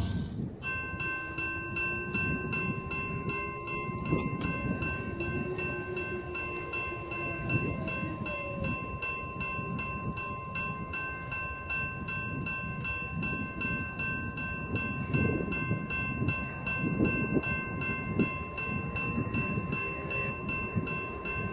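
Distant diesel freight train approaching: a low, uneven rumble, with a faint horn in the first half. A steady thin high-pitched tone sounds over it.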